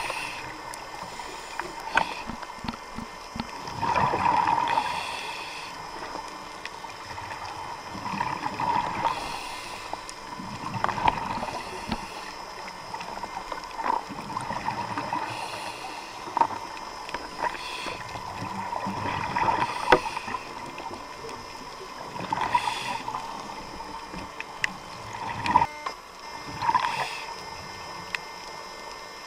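Scuba diver's regulator breathing underwater, heard through the camera housing: surges of bubbling exhaust come every three to five seconds over a constant hiss, with scattered sharp clicks.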